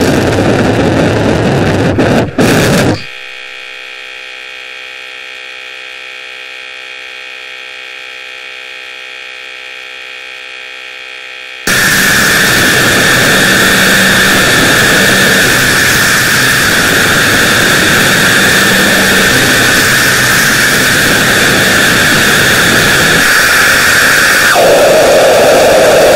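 Loud harsh electronic noise that changes abruptly. A burst of static drops about three seconds in to a quieter steady buzz. Just under halfway the static jumps back to a loud hiss with a strong high band, and that band shifts lower near the end.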